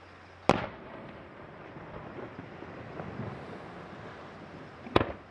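Aerial firework shells going off: two loud booms about four and a half seconds apart, the first trailing off in an echo, with a few faint pops in between.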